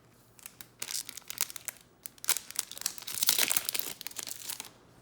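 Foil wrapper of a trading card pack crinkling and tearing as it is opened, in a run of irregular crackles that is loudest about three seconds in.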